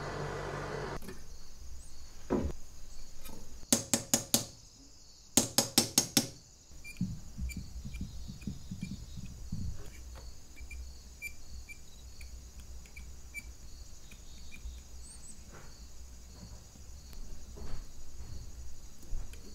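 Gas soldering torch hissing, which cuts off after about a second. Then two quick runs of sharp metallic taps, four and then five, are followed by soft knocks and light clicks as fine silver filigree wire is pressed and shaped with a pointed hand tool on a wooden block.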